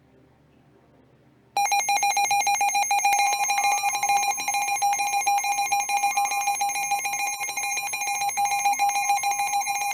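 Emergency Alert System two-tone attention signal: a harsh, steady dual tone that starts abruptly about a second and a half in and holds.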